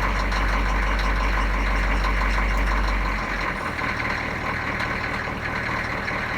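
Diesel engine of a food truck running just after a cold start, its first start since midwinter. It has a deep steady drone that changes about three seconds in to a slightly higher, a little quieter note.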